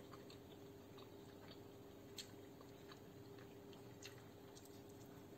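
Quiet chewing of soft polenta (cornmeal porridge), with scattered small clicks of the mouth and spoon. A faint steady hum runs underneath.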